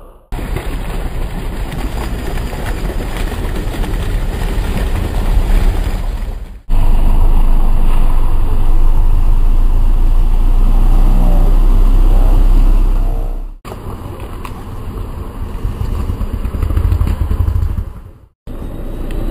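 Off-road 4x4 engines working hard as the vehicles push and spin through deep mud, with a heavy low rumble. The sound breaks off abruptly at cuts three times as the clips change.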